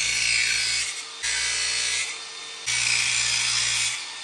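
Angle grinder cutting off the steel studs of a brake booster, the grinding coming in stretches that drop and pick up again abruptly about a second in, around two seconds, and near the end.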